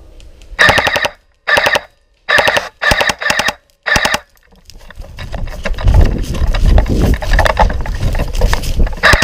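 Airsoft M4-style rifle firing six short full-auto bursts of rapid shots in the first four seconds, with a last short burst near the end. In between comes a loud low rumbling of movement and wind on the microphone.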